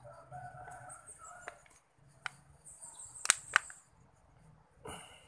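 Cat eating crumbly food off a tiled floor, with a few sharp clicks of chewing; the two loudest come close together about three and a half seconds in. Faint chirping sounds in the first second and a half.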